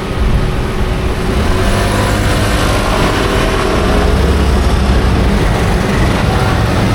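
Street traffic: a motor vehicle's engine rumbling close by over a steady traffic din, loudest about four to five seconds in.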